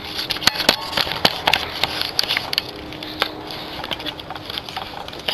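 Irregular sharp clicks and crackling rustles.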